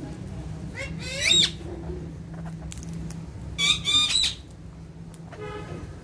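Alexandrine parakeets squawking: a rising call about a second in, then a louder, harsher pair of calls around four seconds in, and a shorter one near the end, over a steady low hum.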